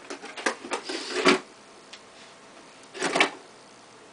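A run of quick clicks and rattles lasting about a second and a half, then a shorter rattling burst about three seconds in: a briefcase and its contents being handled.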